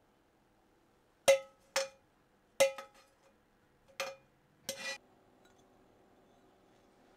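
Five sharp clinks of hard kitchenware knocking together or being set down, each with a brief ring. A faint steady hum starts about five seconds in.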